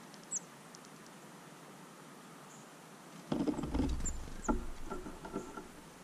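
A chickadee landing and working at a plastic tube feeder: about three seconds in, a couple of seconds of knocking, scrabbling and rattling with deep thumps. Short, high, thin bird chirps sound once near the start and twice during the rattling.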